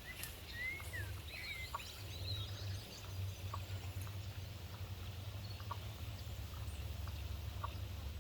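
Wild birds calling: a few curving whistled notes in the first couple of seconds, then short single chirps about once a second or so, over a steady low rumble.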